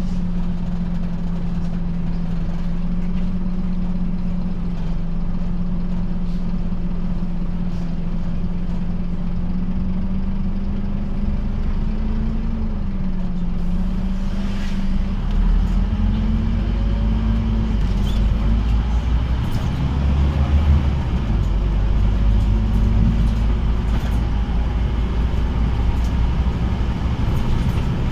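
Scania OmniCity double-decker bus's diesel engine heard from inside the passenger saloon, running steadily at idle at first, then giving a deeper rumble as the bus pulls away about halfway through.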